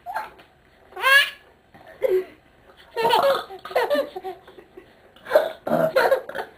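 Baby laughing in several short bouts with high, rising squeals, each a second or so apart with brief quiet gaps between them.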